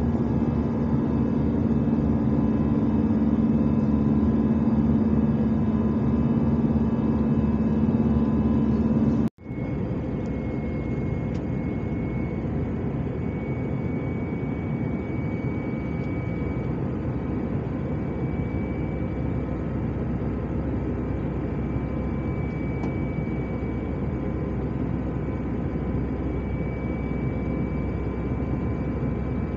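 Steady in-cabin noise of an Airbus A319 in flight, heard from a window seat beside the wing: the rushing drone of the underwing jet engine and airflow. About nine seconds in, the sound cuts out for an instant, and after that the low hum is weaker.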